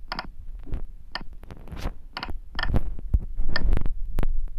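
Keys tapped on a phone's on-screen keypad in a CNC simulator app while G-code is entered. Each press gives a short beep, about five in all, with soft clicks and a low hum underneath.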